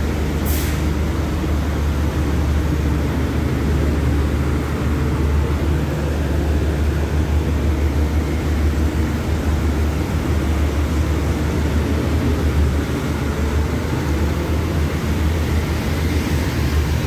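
Passenger train carriages rolling past the platform: a steady low rumble of wheels on the rails, with a brief hiss about half a second in.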